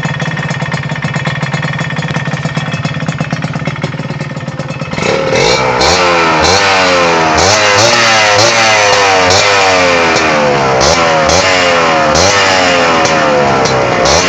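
Leostar motorcycle with a GL tuned exhaust pipe idling steadily, then from about five seconds in revved in quick throttle blips over and over. Each blip rises and falls in pitch and is much louder than the idle.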